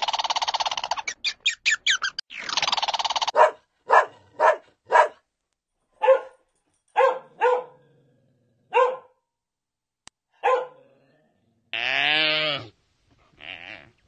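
A dog barking: a dozen or so short single barks, spaced out over several seconds. Before it comes a buzzy, rasping chatter, and near the end one longer call that wavers in pitch.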